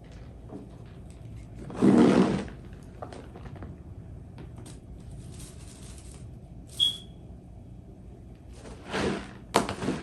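Scattered knocks and thuds of things being handled, with a louder rustling clatter about two seconds in and a brief high squeak about seven seconds in.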